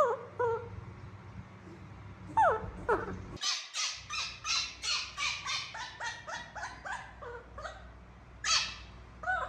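Young monkey calling in short, high-pitched cries. There are a couple of falling calls about two seconds in, then a rapid run of about three cries a second, and a louder cry near the end.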